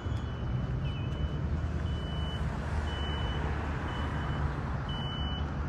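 A vehicle's reversing alarm: a single high-pitched beep about half a second long, repeating about once a second, over a steady low engine rumble.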